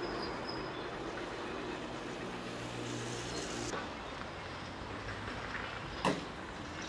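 Caterpillar 374F UHD demolition excavator at work: its Cat C15 ACERT diesel and hydraulics running steadily while the demolition jaws break concrete and debris falls. A single sharp bang about six seconds in is the loudest moment.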